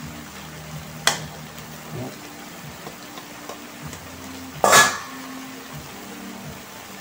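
Metal spatula stirring bottle gourd and shrimp simmering in an aluminium wok, with a sharp knock about a second in. A few seconds later the spatula is set down on a stainless steel bowl with a loud clang, the loudest sound, over a steady low hum.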